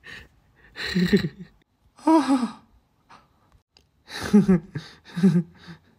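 A voice making four short wordless sounds, sighs and gasps, the second one falling in pitch.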